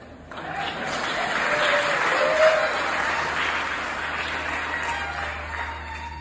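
Audience applauding, starting suddenly and slowly fading; a violin comes back in near the end.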